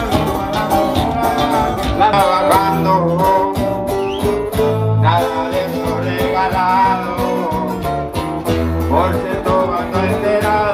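Live band playing with acoustic guitars and a bass line while a man sings into a microphone.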